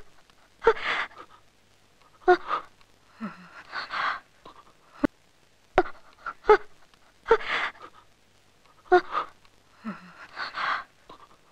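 A woman gasping and panting heavily: sharp voiced in-breaths, each followed by a rough breathy exhale. The same run of gasps comes round again about every six to seven seconds.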